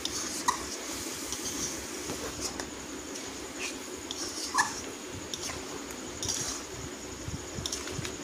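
Metal ladle stirring chicken curry in a metal kadhai, scraping and clicking against the pan, with two short high squeaks, one about half a second in and one near the middle.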